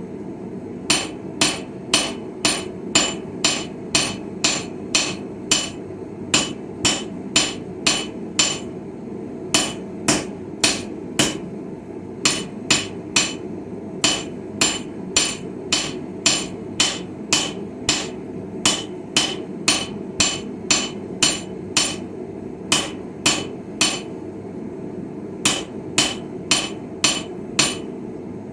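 Hand hammer striking steel on a Viking-style anvil while forging a chisel: about two sharp, ringing blows a second, in runs broken by short pauses. A steady low rushing noise runs underneath.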